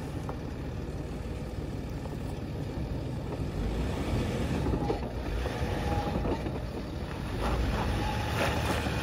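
Range Rover's engine running as the SUV crawls slowly over a rough dirt slope, a steady low rumble that gets louder from a few seconds in as it comes closer.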